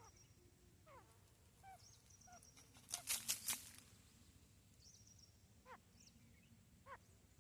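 Female grey francolin calling: short falling notes repeated every second or so, with a quick run of four loud, sharp sounds about three seconds in.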